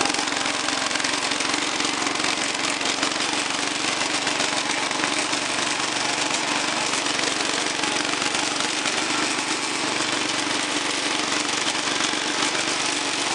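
Cub Cadet 125 garden tractor's single-cylinder Kohler engine running steadily as the tractor is driven.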